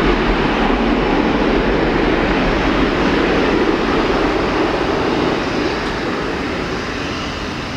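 Jet engines of an Airbus A320neo airliner rolling past on the runway: a steady roar that eases off over the last few seconds as the aircraft moves away.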